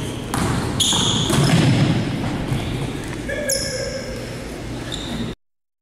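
Live basketball game sound in a gymnasium: a ball dribbled on a hardwood court, short sneaker squeaks and background voices of players and spectators. It cuts off abruptly about five seconds in.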